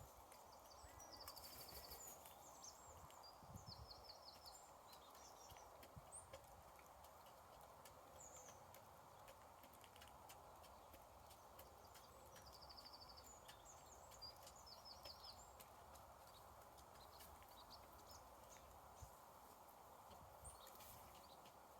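Quiet outdoor ambience: small birds chirping faintly in short trilled phrases, first a second or so in and again about halfway through, over a steady hiss. Scattered light taps and ticks throughout.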